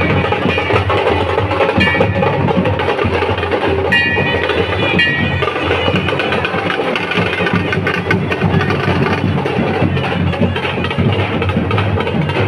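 Dhol drums beating steadily with a shehnai playing over them; the reed's high melody comes through in short phrases.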